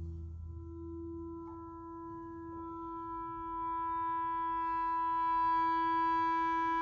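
Symphony orchestra in a quiet sustained passage: a soft held low note, joined about a second and a half in by a higher held woodwind note that slowly grows louder.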